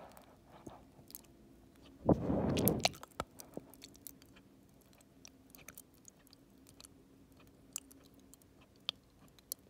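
Wet mouth sounds of a gummy candy being moved around an open mouth toward the throat: scattered small saliva clicks and tongue smacks, with one louder rushing noise lasting under a second about two seconds in.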